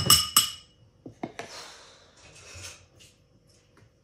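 Metal spoon clinking twice against a ceramic bowl with a short ring, then scraping and light taps as soft banana ice cream is spooned into the bowl.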